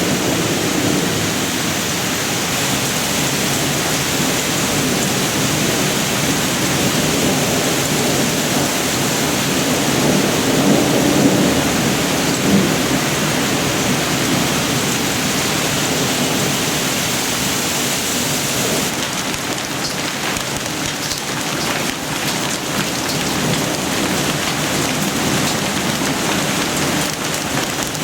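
Heavy thunderstorm rain pouring steadily, with a low thunder rumble swelling about a third of the way in. In the second half the separate hits of the falling drops or ice become more distinct.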